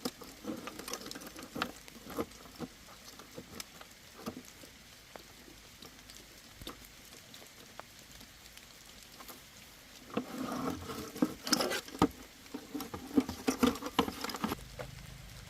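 Small clicks, taps and rustling of hands handling parts and tools, becoming a busier clatter of knocks in the last few seconds. A low steady hum begins near the end.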